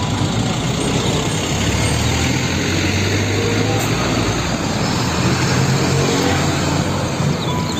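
Large UD Trucks cargo truck driving past, its diesel engine running with a steady low hum under heavy road noise.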